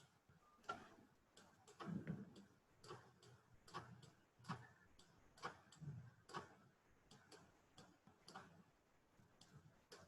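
Faint, irregular clicks of a computer mouse, roughly one or two a second, as objects are selected and placed in the software.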